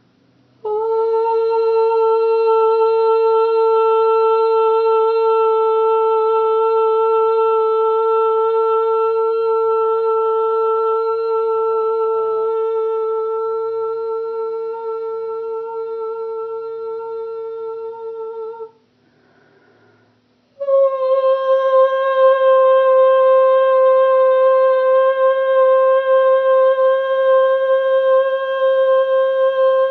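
A woman's voice toning long, steady notes without words. One note is held for about eighteen seconds and slowly weakens, there is a short pause for breath, and then a second, higher note is held.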